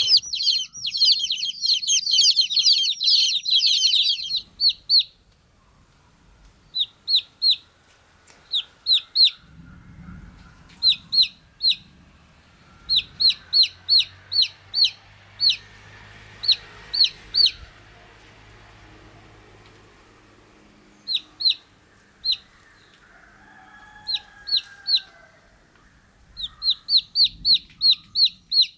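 Baby chicks peeping: a dense chorus of high, falling peeps for the first four seconds, then scattered peeps in quick runs of two to five.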